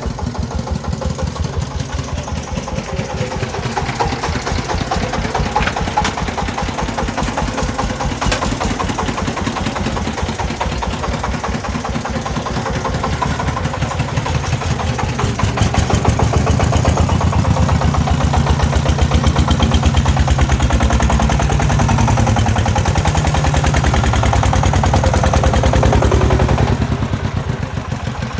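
Single-cylinder diesel engine of a công nông (Vietnamese two-wheel-tractor truck) chugging with a fast, even beat. It works harder and louder from about halfway through for roughly ten seconds, then eases off near the end.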